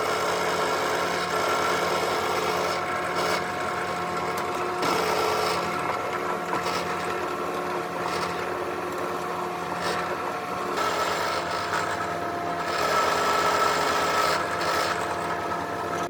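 Electric drill running steadily, boring small holes into a wooden lure body, with a rasping bite into the wood that rises and falls as it cuts.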